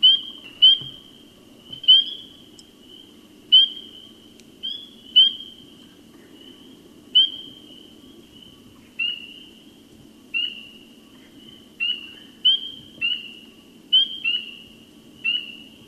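Spring peepers calling: shrill, repetitive peeps, each rising slightly at the start. They come one or two a second at uneven intervals and varying loudness, over a fainter continuous chorus of more peepers.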